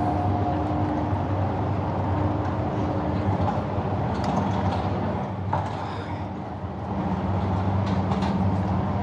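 An engine running steadily, a low hum whose pitch shifts a little and which eases briefly past the middle, with a few light clicks.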